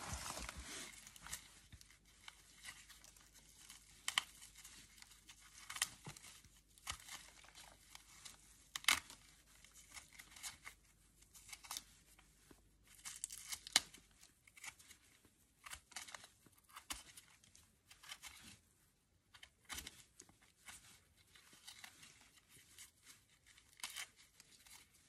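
Kitchen knife trimming an amaryllis bulb: the dry papery outer scales and dried root base crackle and tear in irregular short snaps and rustles.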